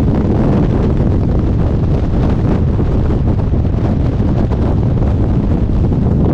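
Loud, steady freefall wind rushing over a helmet-mounted camera's microphone, mostly low in pitch, as a skydiver falls belly-to-earth.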